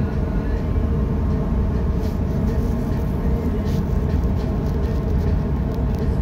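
Steady low rumble of ship engines and machinery, with a constant hum over it.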